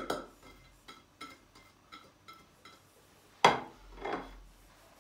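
Grated cheese being tapped off a plate and sprinkled over sliced potatoes in a glass baking dish: a run of light taps and clicks, then a sharp, louder knock a little past halfway and a softer one just after.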